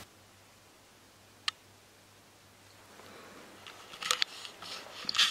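A single sharp click about a second and a half in, then rustling and several sharp clicks from about three and a half seconds on, as a person shifts on a bench and handles a small handheld device.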